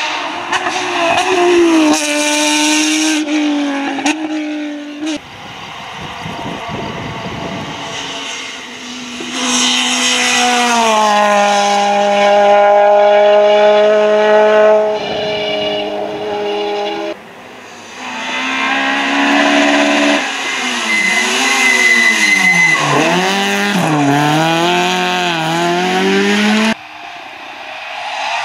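Rally cars passing one after another on a tarmac stage, their engines revving hard. First comes a Porsche 911 GT3's flat-six, later Peugeot 208 rally cars. The engine pitch holds high under acceleration, then drops and rises again several times as the drivers brake and downshift.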